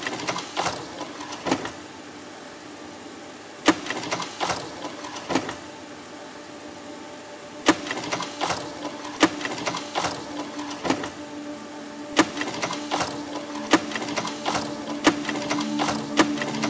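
Clusters of sharp mechanical clicks and taps, each opened by a loud click, repeating about every four seconds. A sustained music tone comes in beneath them near the end.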